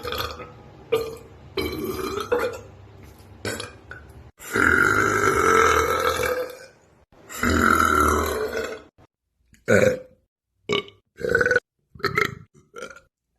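A string of human burps, one after another with abrupt cuts between them. Two long, drawn-out loud burps come in the middle, then a quick run of short burps near the end.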